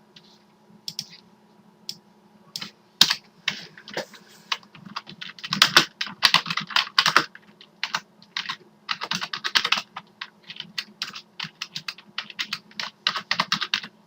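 Computer keyboard typing: irregular bursts of rapid key clicks with short pauses, busier from about five seconds in, over a faint steady hum.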